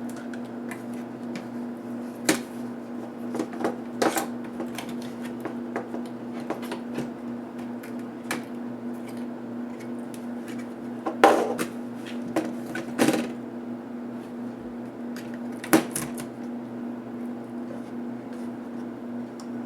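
Light clicks and knocks of laptop parts and tools being handled during disassembly, with a few sharper knocks scattered through, over a steady hum.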